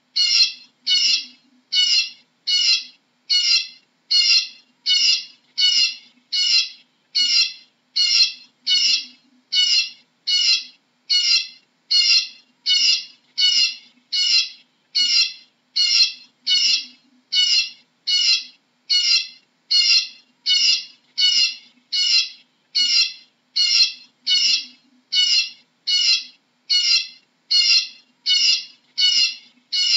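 Eurasian bullfinch calling: one short, high call repeated at a very even pace, about every three-quarters of a second.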